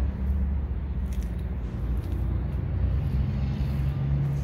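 Low, steady rumble of an idling diesel truck engine.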